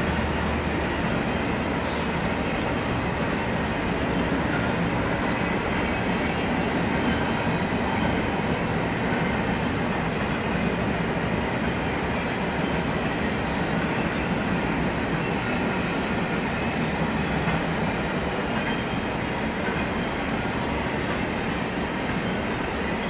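Intermodal freight train's cars rolling past: a steady rumble of steel wheels on the rails.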